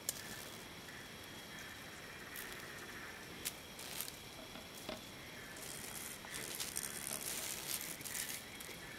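Quiet night ambience over leaf litter: a steady hiss with faint, steady high tones and scattered small clicks and crackles, which grow busier in the second half.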